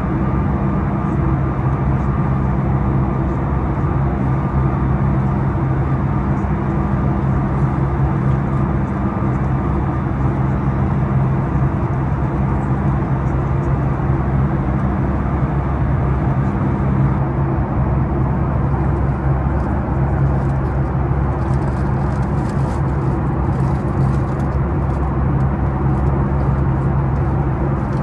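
Steady cabin drone of a Boeing 737 MAX 9 in flight: an even rush of air and engine noise with a constant low hum. A few faint high ticks come in toward the end.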